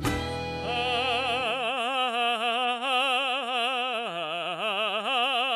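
Operatic solo voice holding one long note with a wide, even vibrato as the song's finale, while the backing music drops away in the first second or two. The note steps lower about four seconds in, then rises again.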